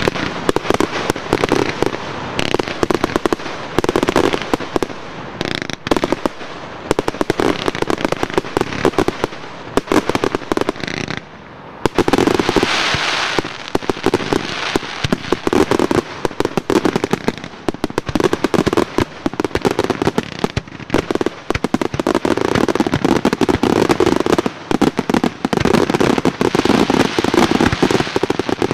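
Aerial fireworks going off in a dense, continuous barrage of shell bursts and crackling, with a brief lull about 11 seconds in before the bursts resume.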